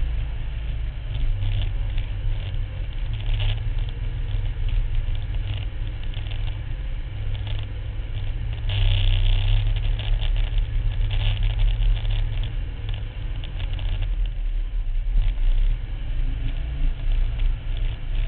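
Max IV six-wheel amphibious ATV driving over sand dunes: its engine runs with a steady low rumble under load, with rattles coming and going, louder for a couple of seconds about halfway through.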